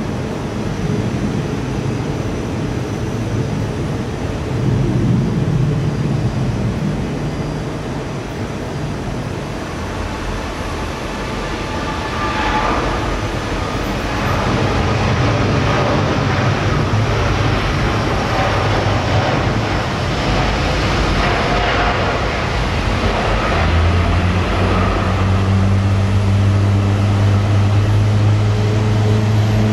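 Boeing 787-9's jet engines on a takeoff roll: a broad roar that grows louder from about halfway. A steady low hum sets in suddenly near the end.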